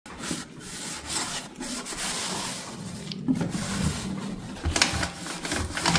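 Damp cloth scrubbing the inside of an air fryer's cooking chamber, an uneven run of rubbing strokes as grease is wiped off.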